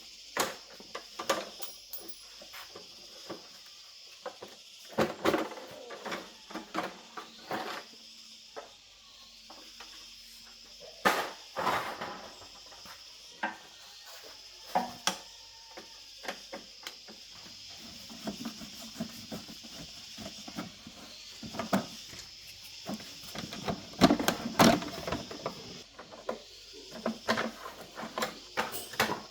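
Irregular clicks, clinks and knocks of hand work on scooter parts, over a steady high-pitched hum in the background.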